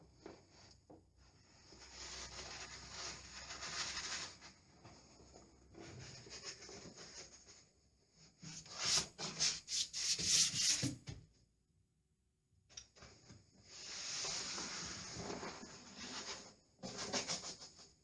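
Lining paper rustling and being rubbed against the wall in several long passes, with a denser crackling stretch about nine seconds in.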